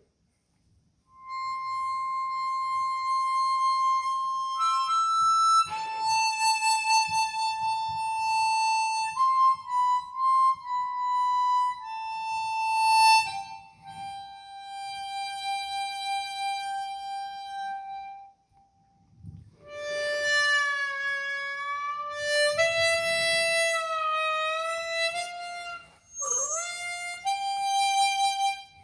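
Easttop EAP Performer 16-hole chromatic harmonica played solo in single long held notes. In the second half the notes are bent, sliding and wavering in pitch.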